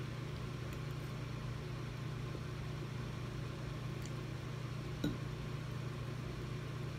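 Steady low mechanical hum in a small room, with a single light click of the metal fork against the plate about five seconds in.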